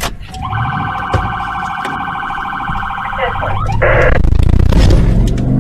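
A patrol car's electronic siren gives a fast-warbling tone for about three seconds, then a short harsh blast. The car's engine then accelerates as it pulls off.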